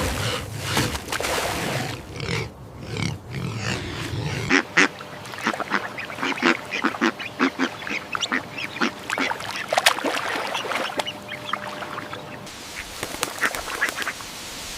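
Ducks quacking: many short calls in quick succession, overlapping one another.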